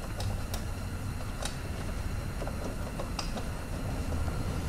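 Hand tools working a bolt loose on an engine mount bracket: a handful of light, irregular sharp ticks and clicks over a low steady hum.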